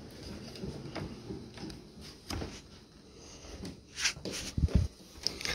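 Scattered soft knocks and low thumps from the handheld camera being moved and footsteps on carpet, with a cluster of thuds near the end.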